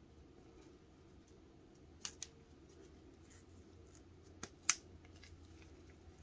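Hard plastic pieces of a Bibendum keychain puzzle clicking against each other as they are slid and pressed together: a quick pair of sharp clicks about two seconds in, another pair about four and a half seconds in, the second of these the loudest, with faint ticks between.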